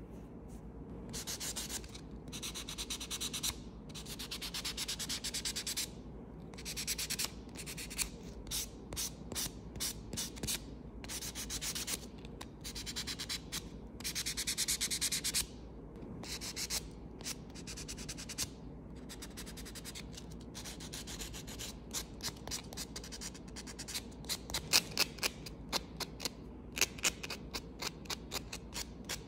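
White nail buffer block rubbed rapidly back and forth across fingernails, buffing the natural nail surface as prep. The scratchy strokes come in runs of a second or two with short pauses between, turning into quicker, sharper single strokes near the end.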